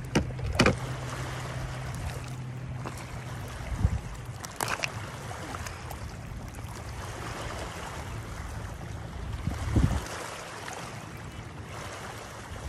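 Lake water lapping at a rocky shoreline, with wind on the microphone. A steady low hum dies away about four seconds in, and a few knocks and rustles come as a bass is carried down to the water and released with a small splash near the end.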